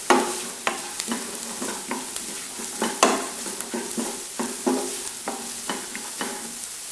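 Green chillies frying in hot coconut oil with garlic, ginger and coconut bits, a steady sizzle, while a spoon stirs and scrapes the pan in short repeated strokes, the sharpest right at the start.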